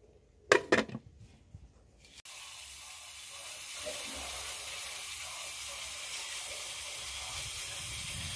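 Pressure-cooker lid clicking shut, a couple of quick knocks under a second in. From about two seconds in comes a steady high hiss of steam from the pressure cooker on the charcoal stove.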